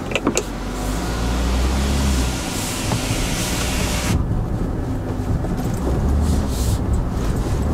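Inside the cabin of a Land Rover Defender 90 crawling over a rough dirt trail: a steady low engine hum with tyre and suspension noise, and a few light clicks at the start. About four seconds in the hiss above the rumble drops off abruptly.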